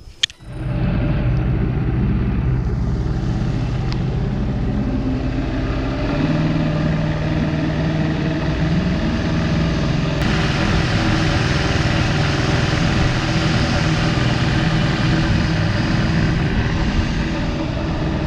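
Bass boat's outboard motor running with the boat under way, its pitch stepping up about six seconds in as it speeds up, with water and wind rushing past.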